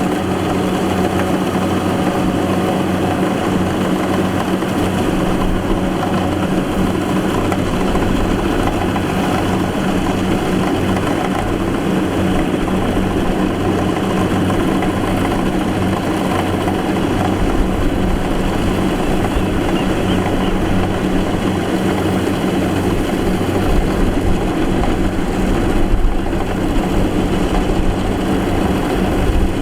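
Kubota DC70 rice combine harvester running steadily, a constant engine drone with a low hum.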